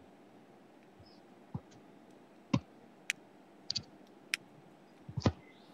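Irregular sharp clicks and light taps, about nine in all, from a computer mouse and keyboard being used, over a faint steady hiss.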